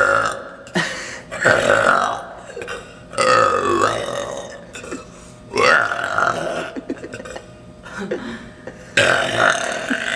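A person burping loudly, one long burp after another: about five in all, each lasting up to a second, with a second or more between them.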